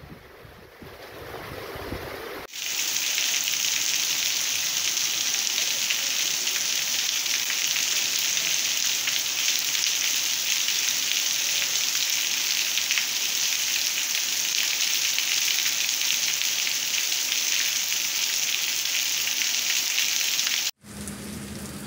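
Heavy rain pouring down on a street: a dense, even hiss that comes in abruptly a couple of seconds in, holds steady, and cuts off suddenly near the end.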